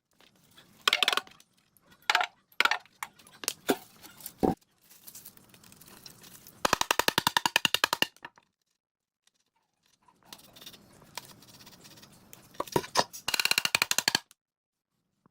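Metal tools and engine parts clinking and knocking, with two runs of fast, even clicking, the longer about a second and a half.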